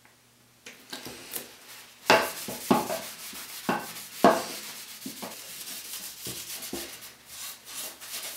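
Cloth rag rubbed back and forth over the wooden handle of a Japanese nata to oil it, with a few sharp knocks against the wooden workbench about two and four seconds in.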